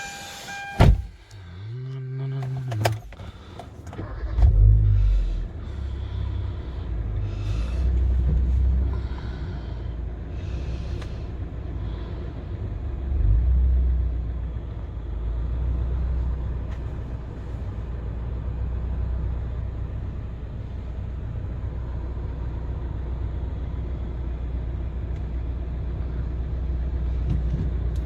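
A car door is shut with a knock, then a short starter whirr. The Kia Cerato's 1.6-litre G4FC four-cylinder engine catches about four seconds in and runs with a low, steady rumble as the car moves off, swelling now and then.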